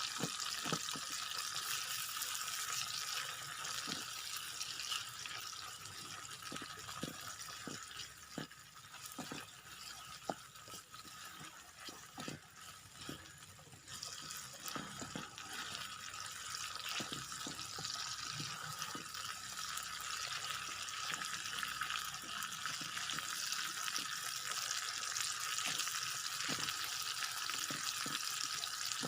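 Food frying in a pan for nasi goreng: a steady sizzling hiss with scattered light clicks and taps, dipping briefly about halfway through.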